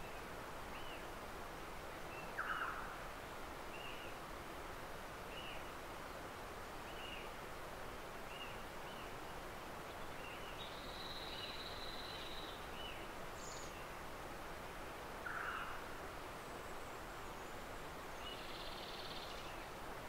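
Forest ambience with a steady hiss, through which a bird repeats a short high note roughly once a second. Two louder brief calls stand out, about two and a half seconds in and again near the middle.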